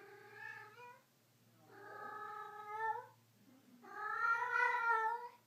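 A cat yowling three times in long, drawn-out meows, the last the loudest.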